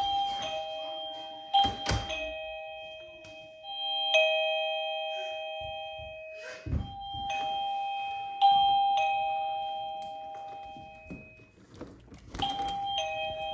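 BISTEE wireless plug-in door chime ringing a two-note ding-dong, a higher note then a lower one, about four times as its door-sensor alarm is set off by the door opening. A few sharp thuds fall between the chimes.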